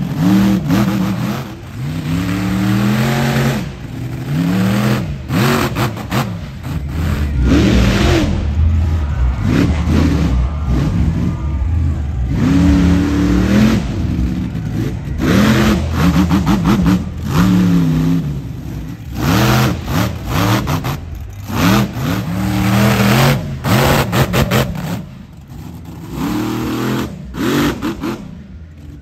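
American Scout monster truck's engine revving hard again and again, its pitch climbing and falling with each stab of the throttle.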